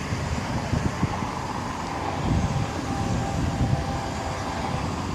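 Distant rumble of an approaching Florida East Coast freight train, with faint steady tones over a noisy low background of wind and traffic.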